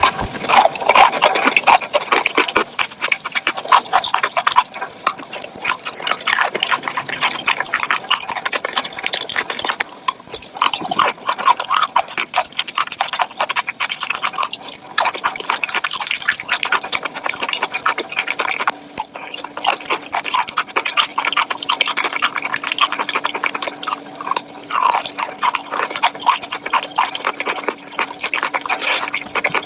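Close-miked eating: food being chewed with continuous, rapid crunching and crackling that comes in irregular waves.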